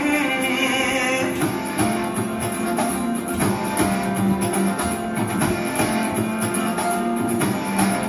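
Recorded music with held melodic tones over a percussive beat.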